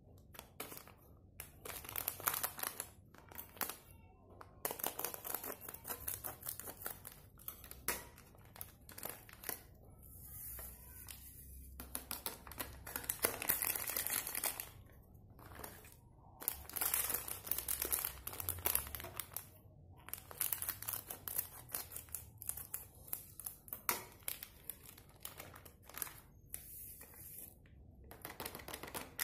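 Foil drink-powder sachets crinkling and rustling as they are handled and shaken out over a frying pan, in irregular bursts with a longer continuous rustle about halfway through.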